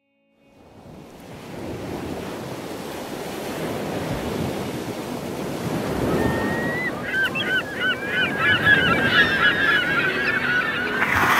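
Sea surf washing, fading in from silence, with gulls calling over it: one long call about six seconds in, then a rapid run of many short calls.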